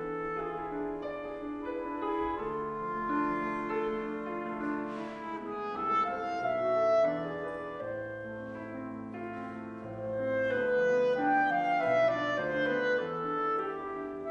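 A clarinet and a Stuart & Sons grand piano playing classical chamber music together: the clarinet carries a melody of held notes over the piano's accompaniment.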